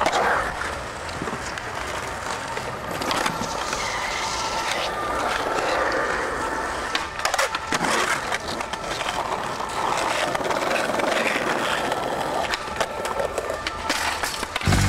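Skateboard wheels rolling over street pavement, with sharp clacks of the board a couple of times in the middle and a cluster of them near the end as the board is popped into an ollie.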